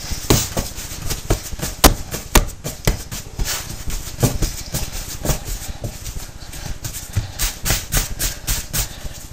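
Bread dough being shaped by hand into a round loaf on a kitchen worktop: irregular pats, slaps and knocks of hands and dough against the counter, a few a second.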